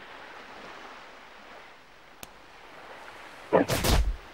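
A loud, sharp whoosh of a fast martial-arts strike, a film sound effect, about three and a half seconds in, lasting under a second, over a faint steady background hiss.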